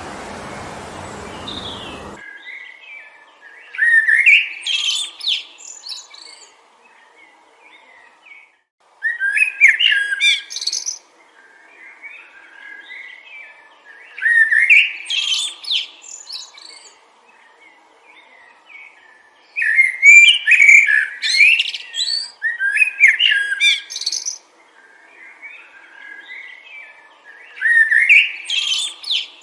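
Wind noise that cuts off abruptly about two seconds in, followed by a songbird singing: a warbling phrase of about two seconds repeated every few seconds, with softer chirps in between.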